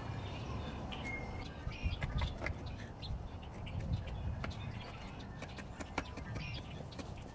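Birds chirping in short, scattered calls, over many faint sharp clicks and a low rumble.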